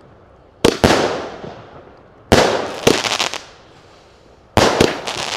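New Pirotecnica 2000 "Lily Magnolia" 16-shot 20 mm firework cake firing: sharp bangs come in three groups about two seconds apart, two or three bangs close together in each, each dying away over about a second. Brief crackling follows the middle group.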